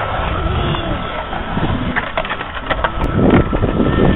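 Skateboard rolling, with a run of sharp clacks and knocks from the board between about two and three and a half seconds in, loudest a little after three seconds.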